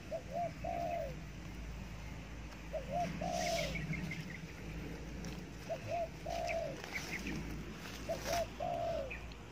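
Spotted dove cooing four times at even intervals of about two and a half seconds. Each phrase is two short notes followed by a longer falling coo. Faint small-bird chirps and brief rustles of leaves come in between.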